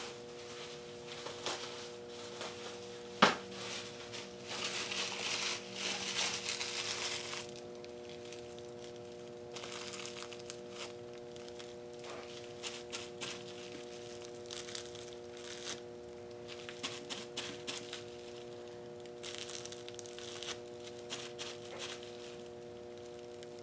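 Plastic bubble wrap crinkling in spells as it is handled and pressed into wet acrylic paint, with scattered small clicks. There is one sharp click about three seconds in, and a steady hum underneath.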